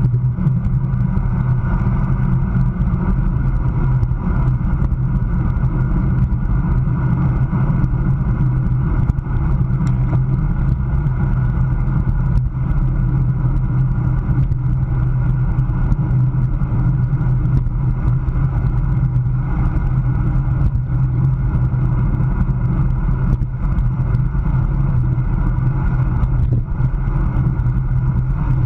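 Steady rumble of wind buffeting the microphone of a camera on a road racing bicycle at about 25 mph, mixed with tyre and road noise.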